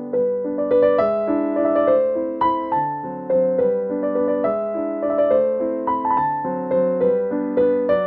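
Background music: a gentle piano melody with chords, notes struck at a steady, even pace.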